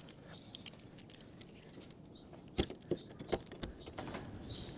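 A small hand tool scraping the welded corner of a vinyl window frame smooth, in short scratchy strokes and clicks. The loudest strokes come in a cluster about two and a half to three and a half seconds in.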